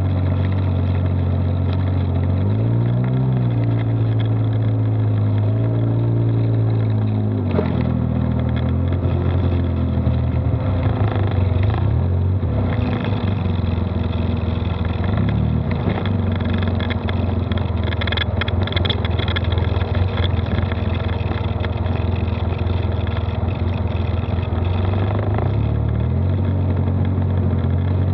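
Polaris side-by-side UTV's engine heard from onboard while driving, revving up about two and a half seconds in, holding, then dropping back after about seven and a half seconds. It runs on under changing throttle with a rushing noise over it, and revs up again near the end.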